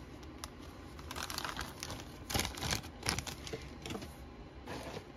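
Plastic model-kit parts trees (sprues) being handled and set down: scattered light plastic clicks and rustles in several short clusters.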